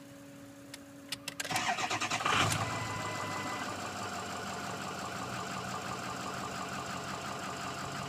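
Ford 6.0 Power Stroke V8 diesel cranked by the starter, catching about two and a half seconds in, then running at a steady idle. With the serpentine belt off it starts, which points to the seizing AC compressor as the cause of the no-start.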